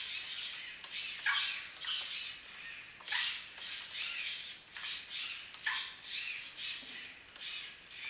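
Hobby servo motors (Futaba S3003) driving an animatronic eye rig in short bursts, about one a second, as the eyes are moved by radio control.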